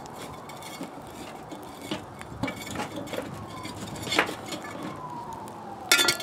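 Charcoal briquettes clinking and scraping against a metal pan and a metal utensil as they are picked up and set on the lid of a cast-iron Dutch oven, with a sharp clink about four seconds in and a cluster of clinks near the end. A faint siren wails slowly up and down behind it.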